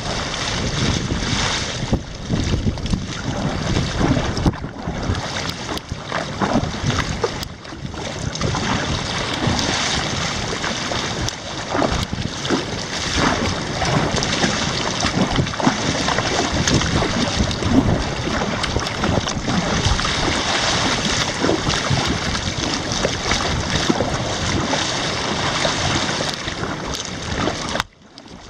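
Wind buffeting the microphone over water splashing around a kayak being paddled at sea.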